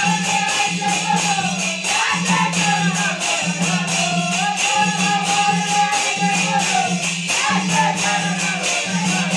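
Marathi devotional bhajan: men singing long, bending notes over a fast steady beat of rope-tensioned dhol drums, with a continuous metallic jingle above.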